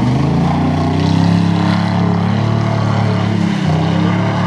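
A GMC pickup truck's engine running at a near-steady pitch during a racing run, heard as a continuous drone.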